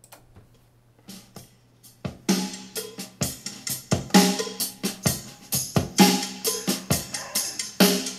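Rock music with a drum kit playing loud through the Sanyo MX-650K boombox's speakers. It is faint for the first two seconds, then comes in loud about two seconds in with a steady driving beat.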